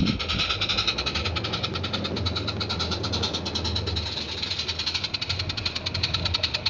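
Small live-steam garden-railway locomotive running, its exhaust chuffing in a rapid, even beat.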